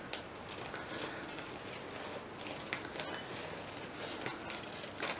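Scissors cutting paper, two people snipping at once: irregular short snips with a light rustle of the paper bags being cut.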